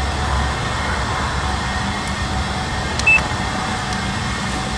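Steady background hum in a concrete parking garage, with a click and a short high beep about three seconds in.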